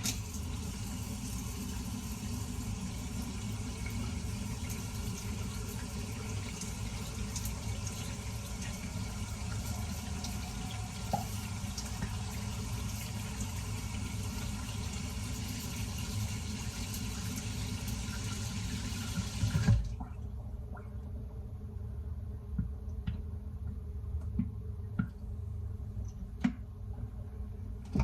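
Kitchen faucet running steadily into the sink for about twenty seconds, then shut off abruptly. A few light clinks and knocks follow, with a louder clatter at the very end.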